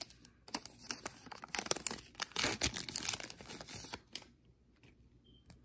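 A 2021 Panini Illusions trading-card pack wrapper being torn open and crinkled in the hands: a run of crackles that stops about four seconds in.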